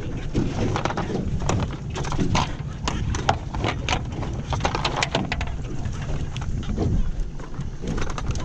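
Irregular knocks and clatter against the deck of an aluminum jon boat as fishing gear and foam jug-line floats are handled, with wind rumbling on the microphone throughout.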